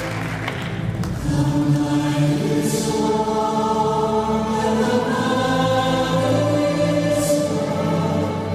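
Epic music for the routine, with a choir singing long held notes over a low sustained accompaniment.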